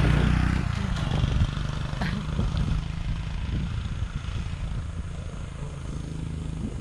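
A vehicle on the move, with a steady low engine and road hum that eases off gradually.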